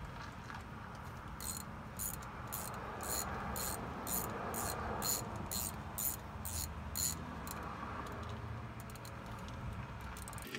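Hand ratchet wrench clicking as it backs out the differential cover bolts: quick runs of clicks about three a second for several seconds, then only scattered clicks near the end, over a steady low background rumble.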